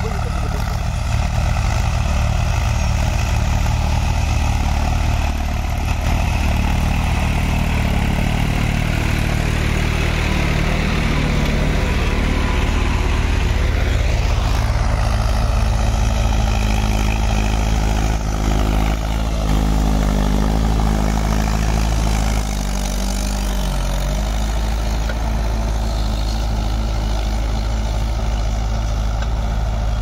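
Diesel farm tractor engine running steadily while pulling a plough. About twenty-two seconds in, its note drops slightly and it gets a little quieter.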